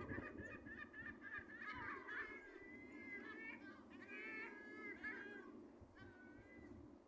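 Birds calling: a run of overlapping harsh, pitched calls that thin out near the end, over a faint low background noise.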